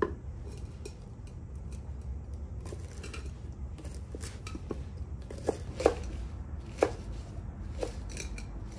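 Cleaver cutting garlic sprouts on a wooden cutting board: irregular knocks of the blade on the board, a few sharper ones past the middle, over a steady low rumble.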